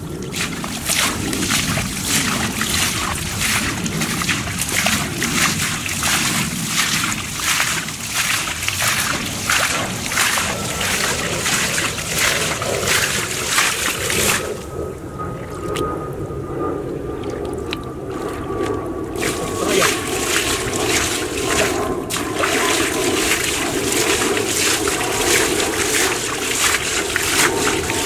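Bare feet wading through shallow muddy water, splashing and sloshing with each step, with a pause of a few seconds about halfway through.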